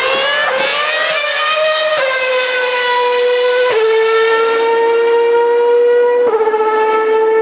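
Ferrari Formula One car's engine screaming at high revs as the car accelerates past and away down the straight. The pitch climbs, then drops sharply at three upshifts, about two, four and six seconds in.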